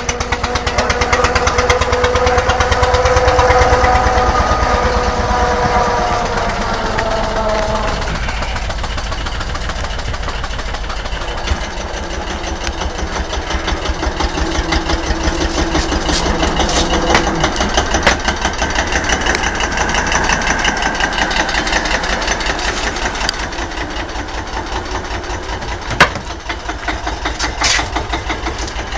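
Farm tractor's diesel engine running steadily with a fast, even pulse while working a corn silage harvest. A whining tone rises and falls over the first several seconds, and there is a sharp knock near the end.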